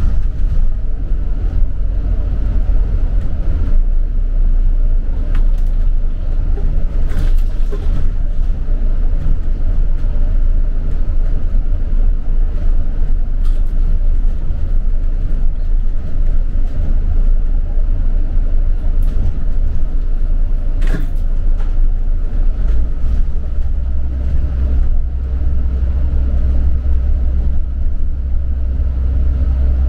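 Steady low rumble of a moving double-decker London bus, engine and road noise heard from inside the bus, with a couple of brief clicks or rattles. The low drone grows stronger about three-quarters of the way in.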